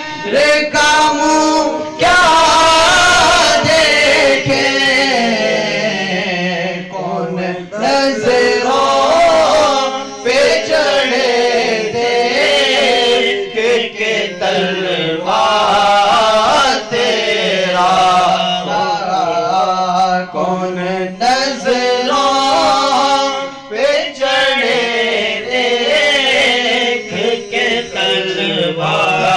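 A young man singing a naat, an Urdu devotional poem in praise of the Prophet, solo into a microphone. He draws out long, ornamented phrases with short pauses for breath between them.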